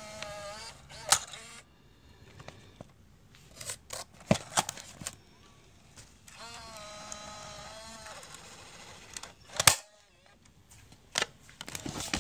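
Sony Handycam CCD-TRV138 camcorder's cassette mechanism working: a small motor whines twice, for a second or two each time, with scattered mechanical clicks and a sharp, loud click a little before the end.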